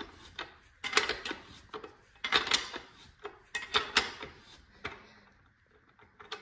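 Socket ratchet tightening a dirt bike's axle nut: about four bursts of quick metallic clicking as the handle is swung back between pulls.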